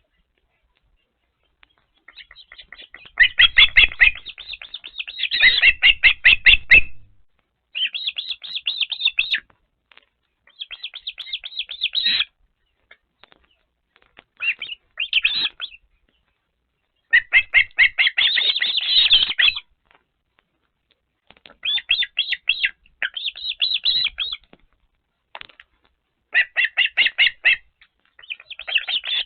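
Ospreys calling close to the nest camera: bouts of rapid, repeated high whistled chirps, each bout lasting one to three seconds, about ten bouts in all. A low rumble runs under two of the longer bouts.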